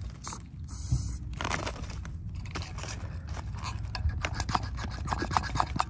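Hand-held brake bleeder vacuum pump being squeezed over and over: a quick series of clicks with short squeaks. It is drawing vacuum on a Mercedes 190E heater box's HVAC vacuum actuator to test whether the actuator holds vacuum.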